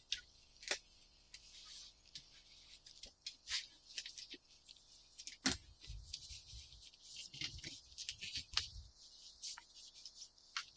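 Hand-work noises: scattered light clicks, taps and rustles, with dull low thumps around six and eight seconds in.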